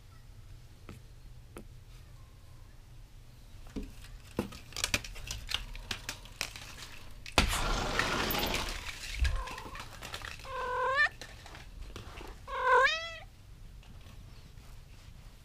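Clicks and a loud rustle as vertical window blinds are pushed aside, then a domestic cat meows twice, about two seconds apart, the second meow louder.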